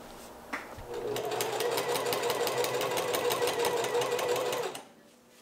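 Domestic sewing machine, fitted with a walking foot, stitching a hem in lightweight tarp fabric. After a short click, it starts about a second in, runs at a steady speed with fast, even needle strokes for nearly four seconds, then stops.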